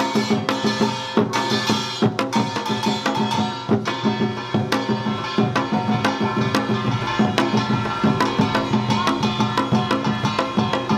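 Samulnori percussion quartet playing an utdari rhythm: the small kkwaenggwari gong clanging in quick, dense strokes over the janggu hourglass drum and buk barrel drums, with the jing gong ringing underneath.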